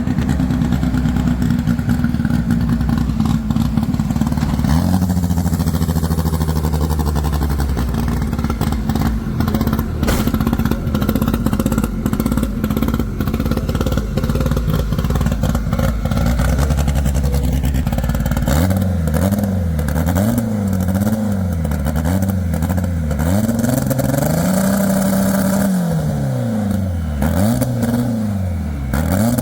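A car engine running at a steady speed, then revved up and down over and over in quick blips from about two-thirds of the way through.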